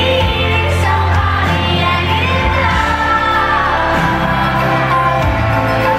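Live pop ballad in an arena: a woman singing a long gliding melody over sustained keyboard chords and a held bass note that changes twice.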